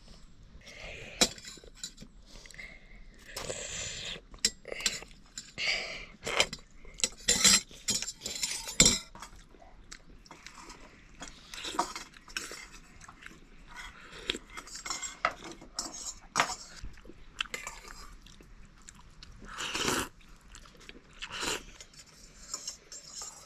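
Spoons or forks clinking and scraping against plates in irregular small clicks, with chewing, as people eat a snack of noodles.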